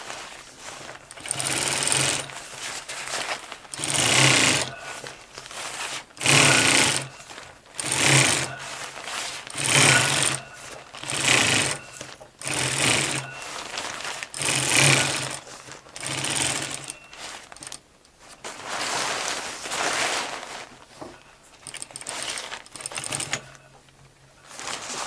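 Electric sewing machine stitching through poncho fabric in short runs of about a second, stopping and starting a dozen or so times as the material is guided and repositioned.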